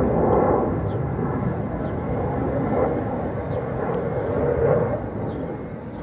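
Aircraft engine noise from a plane flying overhead: a steady rumble that swells and eases a little in level.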